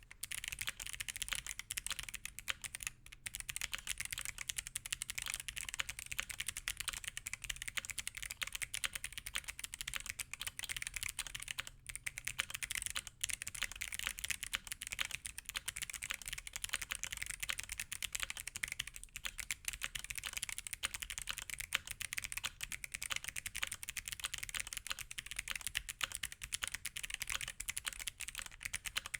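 Fast, continuous typing on a mechanical keyboard with stock Kailh Box Jade clicky switches: a dense stream of crisp, high clicks from each keypress, with only a few brief pauses.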